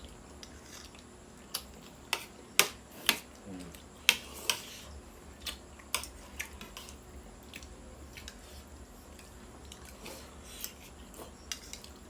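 Eating sounds: a spoon or chopsticks clicking and knocking against a bowl at irregular moments, several sharp clicks in the first half, with faint chewing in between.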